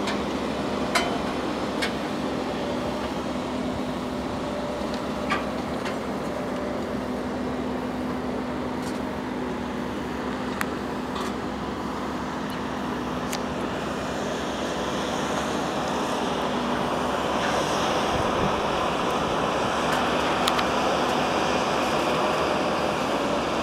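Steady rushing wind noise on the microphone, with a low steady hum underneath that fades out about two-thirds of the way through and a few light clicks.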